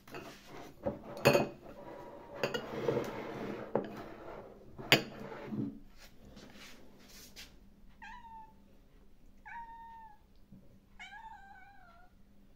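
Clinks and scraping of china bowls being handled with wet cat food, with a couple of sharp clinks. Then a cat meows three times, the last meow longer and wavering.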